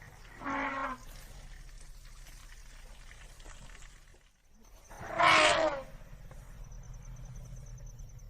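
African elephant calling: a short call about half a second in, then a louder, longer call about five seconds in, over a faint low steady background hum.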